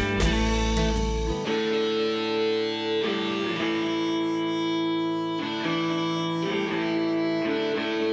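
Background music: guitar playing held chords that change every second or two, the deep bass dropping out after the first second or so.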